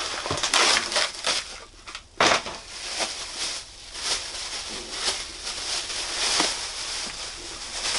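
Clear plastic wrapping and cardboard packaging crinkling and rustling as a book is unwrapped from a mailed parcel, with a sharp, louder crackle about two seconds in.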